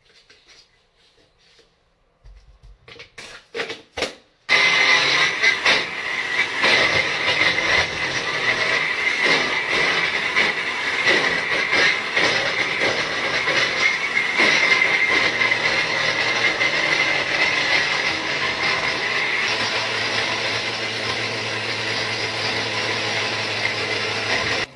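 A few light knocks, then a countertop blender starts about four and a half seconds in and runs loud and continuous, blending ice into a protein shake. It rattles irregularly at first as the ice breaks up and runs steadier over its last few seconds.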